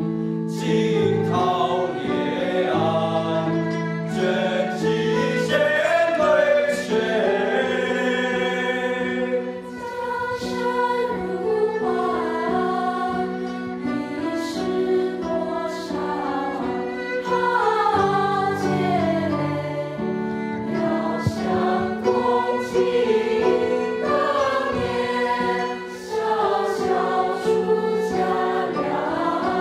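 Youth choir singing a classical Chinese ci poem in a slow melodic setting, the melody moving above long held low notes.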